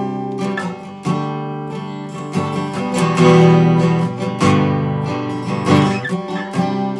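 Acoustic guitar strumming chords, an instrumental passage with no singing, each chord struck afresh about every second and let ring.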